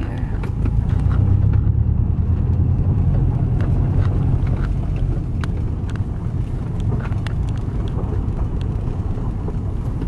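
Car driving slowly on a gravel road, heard from inside the cabin: a steady low rumble of tyres and engine with scattered light clicks.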